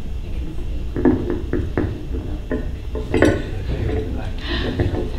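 A handful of light knocks and clinks, starting about a second in and ending around three seconds in, some with a brief ring, over a steady low room hum.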